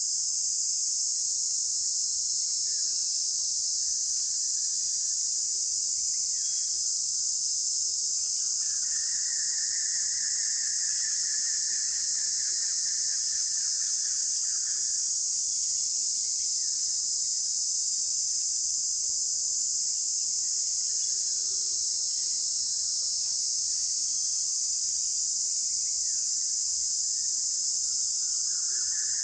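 Steady, loud high-pitched drone of a tropical insect chorus. A second, lower-pitched insect buzz joins about nine seconds in and lasts about six seconds.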